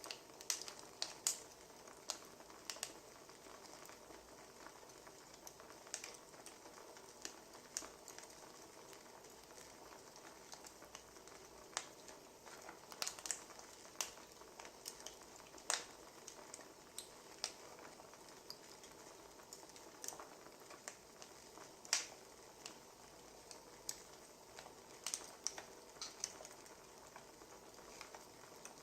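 Wood fire crackling: faint, irregular sharp pops and snaps over a soft hiss.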